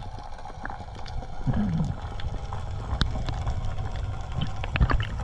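Underwater sound picked up by a diver's camera: a low rumble of moving water with scattered sharp clicks and knocks, and a brief wavering low hum about a second and a half in.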